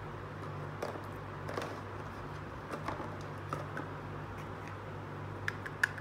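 Light clicks and taps of small plastic toy pieces being handled, the sharpest two near the end, over a steady low hum.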